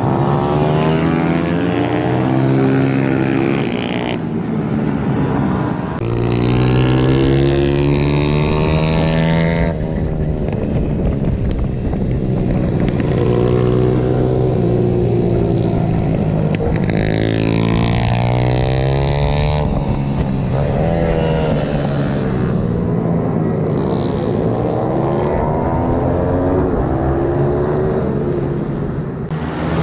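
Petrol pit bike engines revving up and down through the gears at close range, over wind rush on the microphone at speed.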